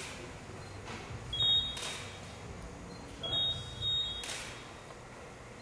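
A photographer's camera beeping to confirm focus, then its shutter clicking, twice: each short high beep is followed by a shutter click.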